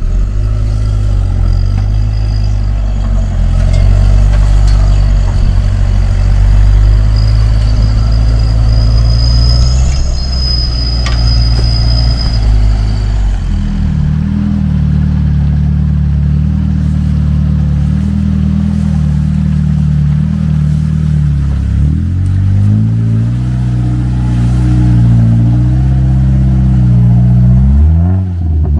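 A UAZ off-roader's engine running under load as it crawls up a muddy slope, with a thin, steady high whine over it. Then a second lifted off-roader's engine runs, revving up and dropping back twice in the second half.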